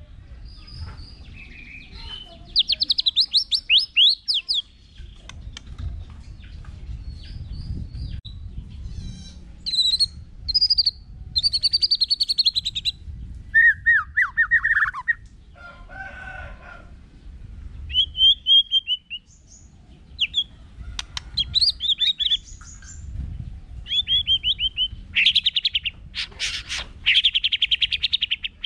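White-rumped shama singing in bursts of varied phrases: clear whistles, rapid trills and fast sweeping runs, with short pauses between them.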